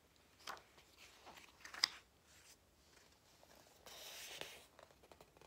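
Faint handling of a large paper picture book as its page is turned: a few light taps and clicks, then a short papery rustle about four seconds in.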